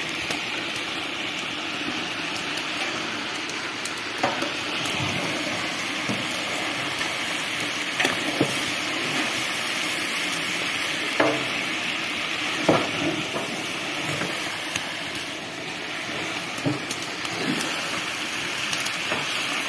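Meat for plov sizzling and frying in hot oil in a large iron kazan, the browning stage of the dish. It is stirred with a long-handled skimmer, with a few sharp knocks against the pot.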